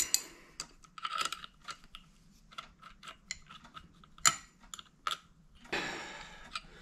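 Small wrench clicking and tapping on the Yamaha Banshee's clutch pressure plate as the clutch adjuster lock nut is tightened: a string of light, irregular metal clicks, with one louder click about four seconds in.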